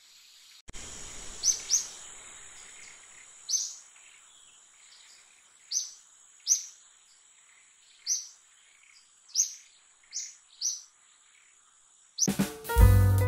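Short high bird chirps repeating every second or two over a steady high-pitched insect drone, with light outdoor hiss. Music starts abruptly near the end.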